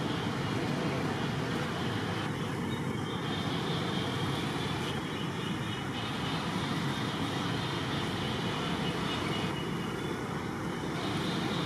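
Steady outdoor background noise, an even rumble and hiss with no distinct calls or knocks standing out.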